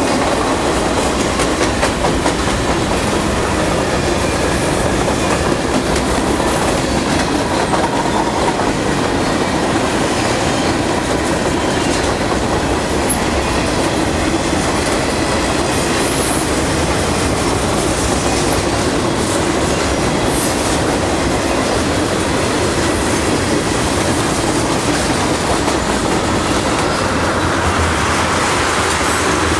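Freight train cars rolling past, with a steady rumble and the clickety-clack of wheels on the rails.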